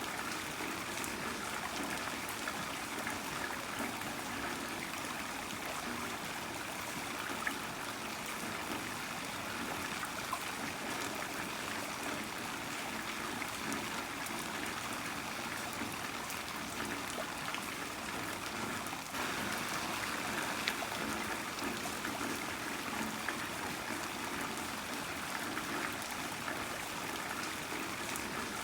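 Heavy rain falling steadily, a continuous wash of water with scattered drop ticks and trickling, growing slightly louder about two-thirds of the way through.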